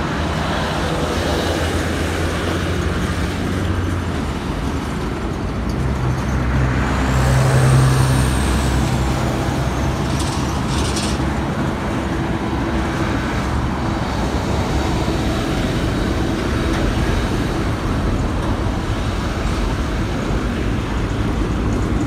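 Road traffic from cars and trucks on the adjacent road: steady engine and tyre noise. A vehicle passes close, loudest about a third of the way in, followed shortly by two short high hisses.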